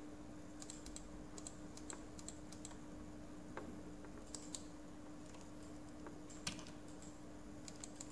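Irregular, scattered clicks of a computer keyboard and mouse as lines are trimmed and erased in a drawing program, over a faint steady hum.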